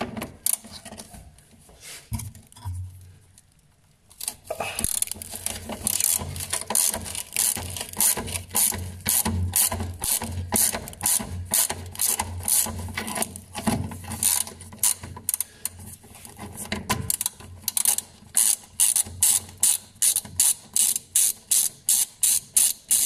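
Socket ratchet clicking in a long, even run of sharp clicks, several a second, as it undoes a 17 mm bolt on the fuel filter bracket; a few scattered knocks of the tool being fitted come before the run starts about four seconds in.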